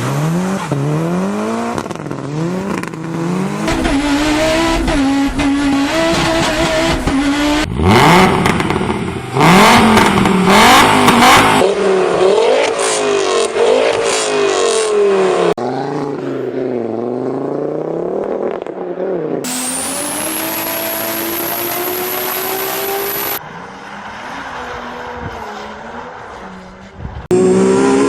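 Several different car engines in quick succession, cut one after another, each revving repeatedly up and down.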